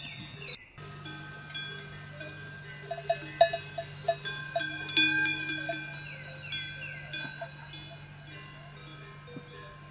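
Metal bells, like cowbells, clanking and ringing irregularly, the clanks loudest and thickest in the middle. Short falling chirps sound over them, and a steady low hum runs underneath. The sound cuts out briefly just under a second in.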